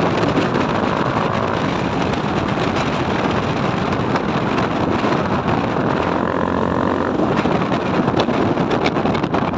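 Steady rush of wind on the microphone from a moving Honda CRF150 dirt bike, with no clear engine note standing out.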